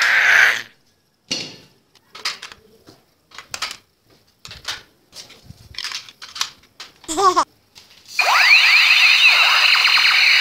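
Electronic toy gun sound effects: scattered short clicks and zaps, then from about eight seconds in a loud, continuous electronic wail of many overlapping rising and falling sweeps, like a laser-blaster firing effect.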